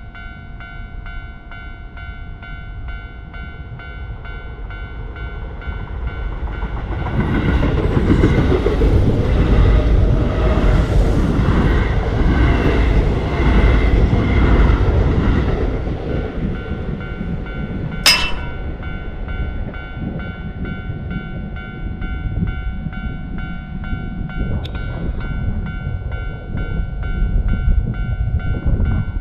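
A Japanese railway level-crossing warning bell rings steadily throughout as a train passes over the crossing. The train's rumble builds, is loudest for most of its passing, then eases off. A sharp click comes about two-thirds of the way in.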